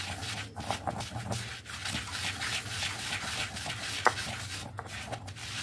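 Stone pestle grinding roasted spices into powder in a stone mortar: a steady gritty scraping and rubbing, with one sharper knock of stone on stone about four seconds in.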